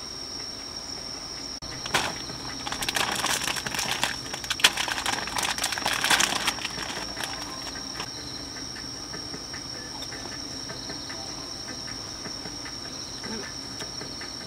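Crickets trilling steadily on one high pitch. From about two seconds in to about seven seconds, a burst of close rustling and crackling comes from hands handling something at the table.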